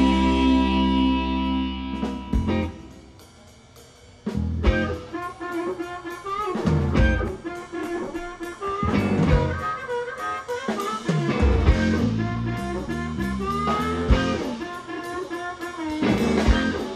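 Live blues band: a loud sustained full-band chord rings and fades over the first few seconds, then after a short lull a blues number starts, with harmonica wailing over electric guitar, bass and drum kit.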